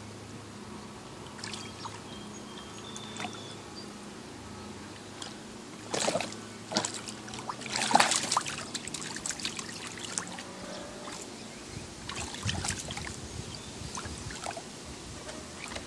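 Dog wading in shallow water in a plastic kiddie pool, its paws splashing and sloshing the water in short, irregular bursts, the loudest near the middle.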